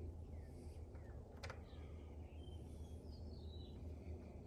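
Faint bird chirps over a steady low hum, with a single sharp click about a second and a half in.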